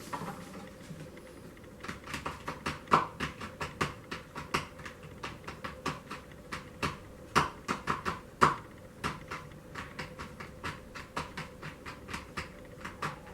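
A loudspeaker being tapped and jostled by hand: rapid, irregular sharp taps, several a second, beginning about two seconds in. The taps vibrate the cone so that the speaker works as a generator, lighting LEDs through a transformer.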